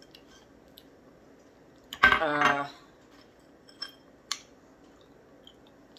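A short vocal sound from the eater about two seconds in. Chex Mix pieces clicking lightly against a glass bowl as a hand picks through it, with a couple of sharp clicks around four seconds in.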